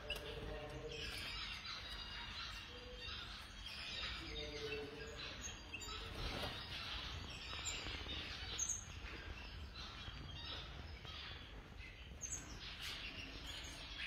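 Many caged birds chirping and chattering at once, a dense overlapping chorus of short high calls. A lower, drawn-out sound comes twice, about half a second in and about four and a half seconds in.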